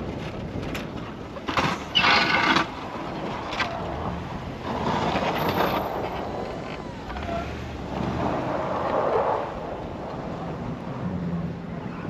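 Pickup truck with a front snowplow driving in and pushing snow, the blade scraping and the snow rushing over it, then backing away, with its engine running under it. A brief loud rush about two seconds in is the loudest moment.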